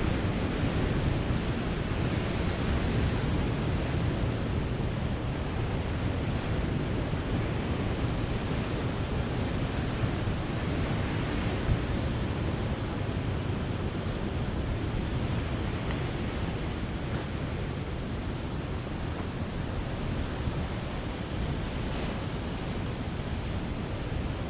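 Ocean surf washing ashore in a steady rush of noise, with wind on the microphone adding a low rumble.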